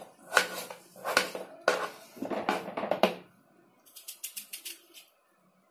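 Kitchen knife chopping peeled potatoes on a wooden cutting board: a string of knocks, about two a second. About four seconds in come lighter, quicker clicks as the knife cuts through a potato slice held in the hand.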